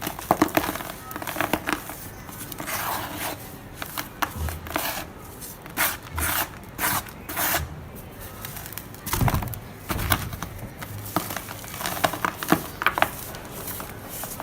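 Dry red dirt chunks crumbling and crunching, with irregular crisp crackles and scrapes and one heavier thud about nine seconds in.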